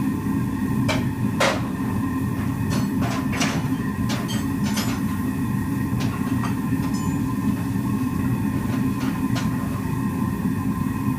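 A fire heating an anvil for heat treatment, running with a steady low rumble and a faint whine. Scattered sharp clicks or crackles break in at irregular moments, most of them in the first five seconds.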